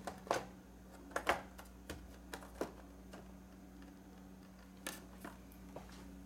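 Scattered light clicks and crinkles of a carded action figure's cardboard backing and plastic blister being handled and turned over, over a steady low hum.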